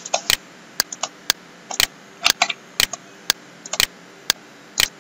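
A steady ticking of sharp clicks, about two a second, evenly spaced, with a few extra clicks falling in between.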